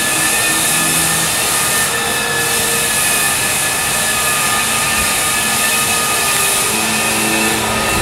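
Floor sanding machine running steadily, a continuous whine with a few constant high tones over a wash of noise.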